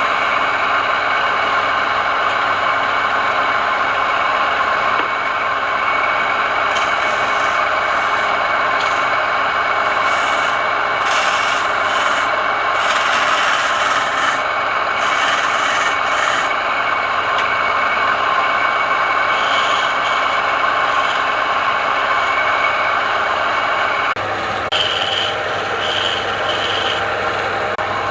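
Wood lathe running with a steady motor whine, while a turning tool scrapes the spinning wood in repeated short bursts.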